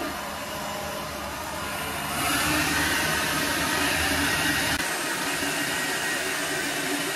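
Handheld hair dryer running steadily, blowing on wet hair. About two seconds in the airflow gets louder and a steady high whine comes up.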